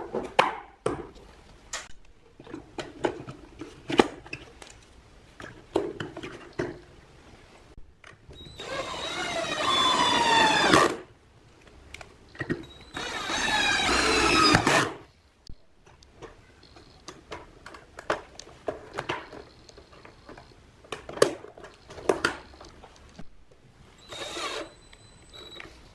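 Cordless drill driving screws into a plastic speaker cabinet: two runs of about two and a half seconds each, the motor's whine falling in pitch during each run, and a short third run near the end. Sharp clicks and knocks of plastic parts being handled come in between.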